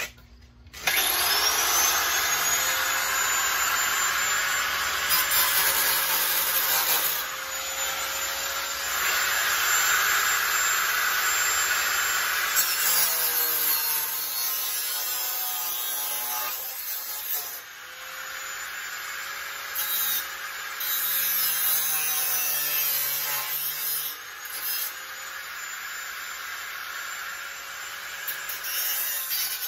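Corded angle grinder with a thin cutting disc, spinning up about a second in with a rising whine, then cutting slots into an old rusted steel hand-saw blade. The sound grows louder and harsher as the disc bites into the metal and eases as it lifts off, and it is quieter in the second half.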